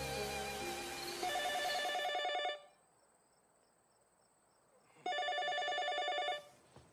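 Telephone ringing twice with a trilling ring. Each ring lasts about a second and a half, with a pause of about two and a half seconds between them. Soft music fades out at the start.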